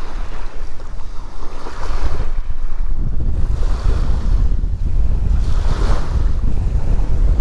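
Wind buffeting the microphone in a steady low rumble, with small waves breaking and washing up the sand, swelling and fading every couple of seconds.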